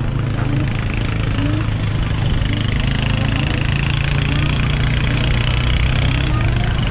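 Steady wind and road noise from riding a Kaabo Wolf King 72 V electric scooter, with a strong low hum underneath.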